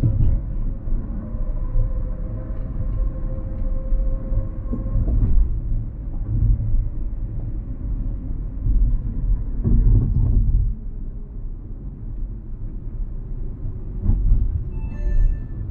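Car's road and tyre rumble heard inside the cabin at highway speed, with a faint steady hum in the first few seconds. The rumble drops off after about ten seconds as the car slows.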